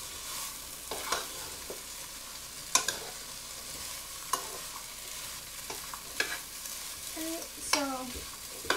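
Diced potatoes and onions sizzling in oil in a pot while a spoon stirs them, knocking against the pot about five times.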